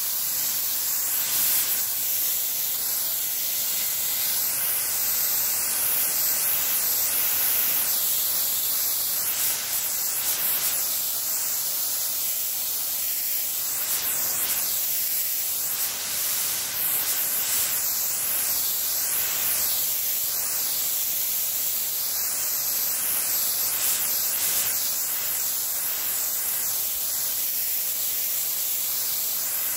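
Water under pressure spraying as a fine mist from a brass hose spray nozzle over young plants: a steady hiss.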